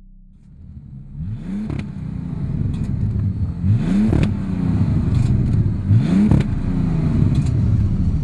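A car engine revved hard three times over a steady running rumble, each rev climbing in pitch and ending in a sharp crack. The sound fades in over the first couple of seconds.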